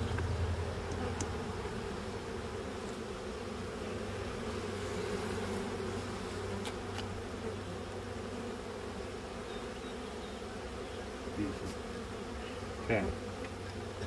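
Honeybees from an opened hive buzzing, a steady hum of many bees, with a few light clicks.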